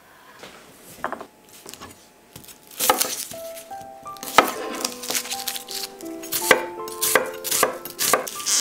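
Kitchen knife chopping a shallot on a wooden cutting board: quick, irregular knocks of the blade against the wood. Light background music of short melodic notes joins about three seconds in.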